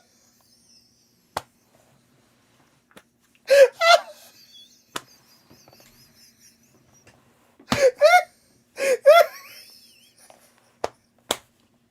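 Short pitched vocal sounds in quick pairs, about four seconds in and again about eight and nine seconds in, with single sharp clicks scattered between them.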